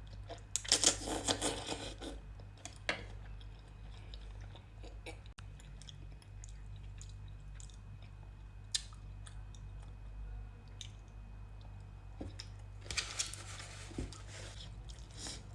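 Close-miked eating sounds of a person eating spicy instant noodles: chewing with small clicks and crunches. There are louder stretches of noise about a second in and again near the end.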